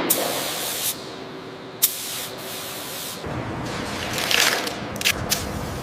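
A steady high-pressure spray hissing, with sharp clicks about two seconds in and twice near the end. A deeper rumble joins just after three seconds, and the hiss swells briefly about four seconds in.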